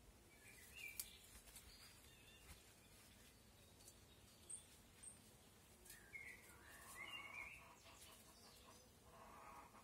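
Faint birds chirping outdoors: a few short calls scattered through, over a quiet background hiss, with a single faint click about a second in.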